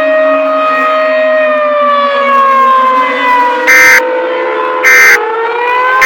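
Civil defense siren wailing, its pitch sagging slowly past the middle and rising again near the end. Short, loud, harsh blasts cut in about once a second from a little past halfway.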